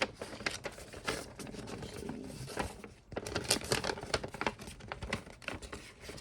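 Hands fiddling with small parts and packaging: a run of light clicks and taps with crinkly rustling, as an accessory is fitted by trial and error.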